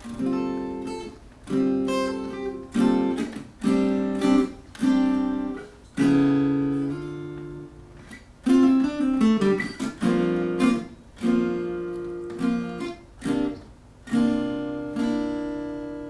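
Solo acoustic guitar playing chords, each one struck and left to ring out, one after another.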